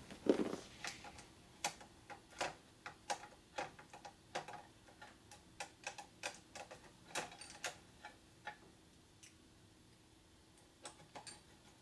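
Irregular light clicks and clinks of small metal parts and hand tools being handled on a workbench, with a quieter stretch about three quarters of the way through.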